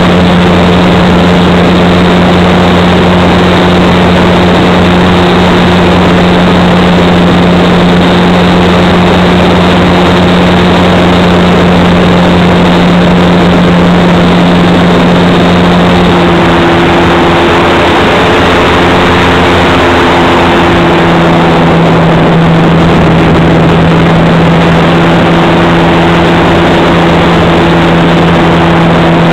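Onboard sound of a Parkzone SE5a model plane's electric motor and propeller, heard from a camera riding on the plane: a steady drone over a loud rush of air. The pitch shifts slightly about sixteen seconds in and again around twenty-one seconds, as the throttle is eased.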